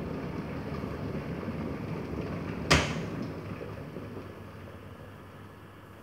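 Sabichi electric kettle boiling with a steady rushing noise. Its switch clicks off sharply about halfway through as the water reaches the boil, and the boiling noise then dies away gradually.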